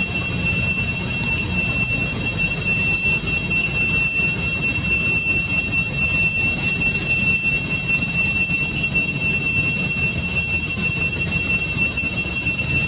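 A steady, high-pitched drone of cicadas over a low rumbling hiss.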